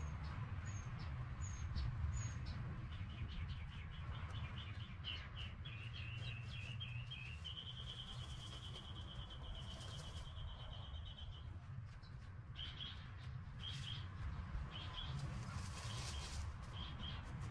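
Small songbird singing: a run of short chirps, then one long even trill lasting about four seconds, then scattered short chirps, over a steady low background rumble.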